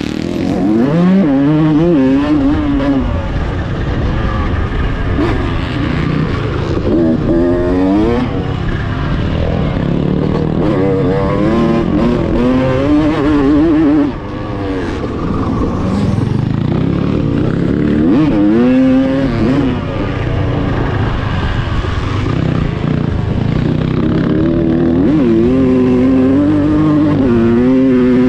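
Honda CR250 single-cylinder two-stroke motocross engine heard from on board under hard riding, revving up and down over and over as the throttle is worked and the gears change. The engine briefly drops off about halfway through, then picks up again.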